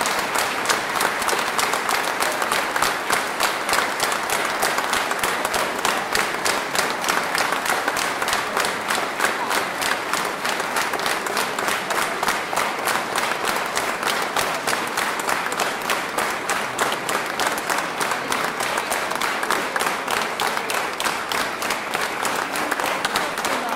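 Large concert audience applauding steadily, a dense sustained clapping.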